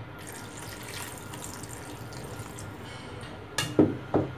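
Water poured from a bowl into a steel pan of cooking cucumber pieces, splashing and filling for about three seconds; this is the water for the curry's gravy. A few sharp knocks follow near the end.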